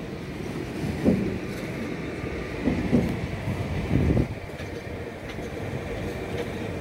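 Indian Railways passenger coach running along the track, heard from inside the coach: a steady rolling rumble broken by separate wheel clunks over rail joints, about a second in, near three seconds and near four seconds.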